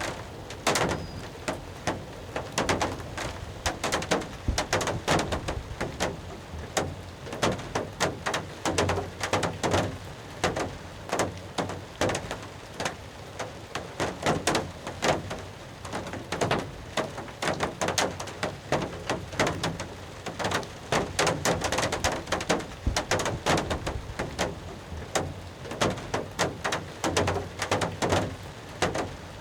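Rain falling on the roof of a hunting blind: a dense, uneven run of sharp drop taps that never lets up.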